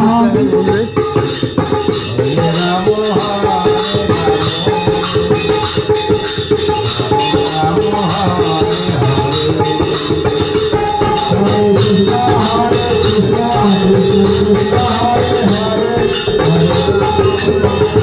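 Music with a steady jingling, shaker-like percussion beat under a melody that steps up and down.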